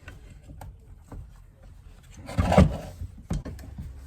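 Bench vise's sliding jaw being run in on its freshly greased screw: light metal clicks, a brief louder scrape about halfway through, then a sharp metal knock.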